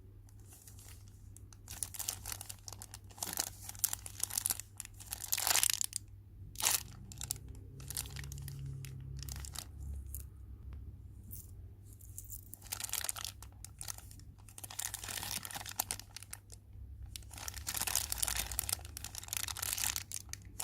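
Plastic wrapping crinkling and rustling in irregular bursts as small squishy toys are handled, over a steady low hum.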